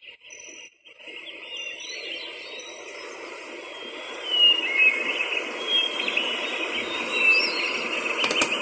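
Alarm clock playing a recorded birdsong-and-nature alarm sound through its small built-in speaker: many short bird chirps over a steady outdoor-ambience hiss, getting louder over the first few seconds.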